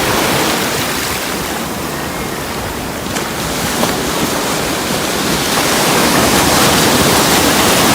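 Ocean surf washing up on a sandy beach, with wind noise on the microphone. The rushing noise is steady and swells louder in the last few seconds.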